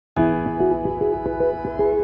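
Background music: a sustained chord with a melody of short notes over it, starting a moment in.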